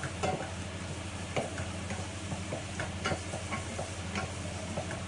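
Chopped onion and garlic sautéing gently in oil in a stainless steel saucepan, a soft sizzle under irregular clicks and scrapes of a wooden spoon stirring against the pan.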